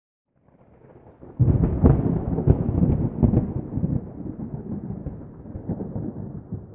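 A deep rumbling sound effect with crackles. It swells in, holds loud for several seconds, then slowly dies away.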